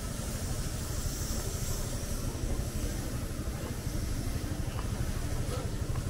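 City street ambience: a steady low rumble of road traffic, with a brief rise in hiss about a second in.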